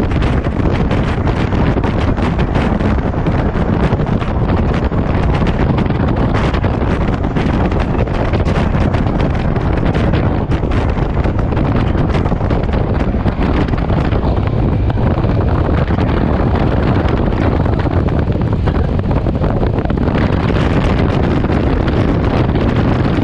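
Heavy wind buffeting on the microphone of a motorcycle at highway speed, with engine and road noise underneath, at a steady level.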